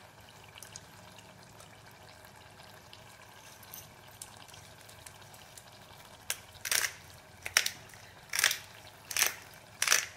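Grinder-top pepper bottle being twisted over the pot to crack coarse black pepper: five or six short crunching rasps, evenly spaced under a second apart, starting about six seconds in. Before that only a faint low background.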